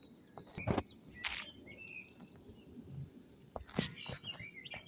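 Small birds chirping in short calls, with a few brief knocks near the microphone about a second in and again near the end.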